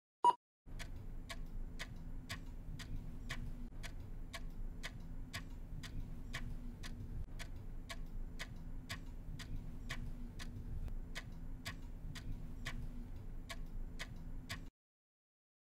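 A clock ticking: one tick right at the start, then steady ticking about twice a second over a low hum. The ticking cuts off suddenly about a second before the end.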